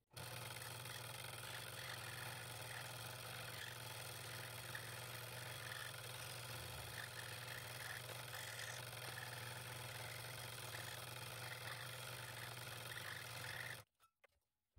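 Scroll saw running steadily, its reciprocating blade cutting through thin wood. The hum stops abruptly about a second before the end.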